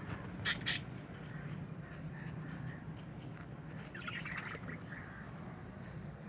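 Budgerigars calling: two sharp, high squawks in quick succession about half a second in, then faint chattering around four seconds in.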